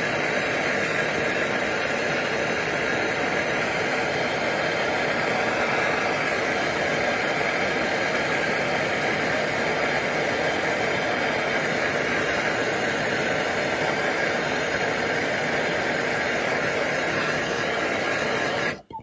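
MAPP gas torch flame burning with a steady hiss while it heats a copper-to-brass valve joint for soft soldering. It cuts off suddenly near the end.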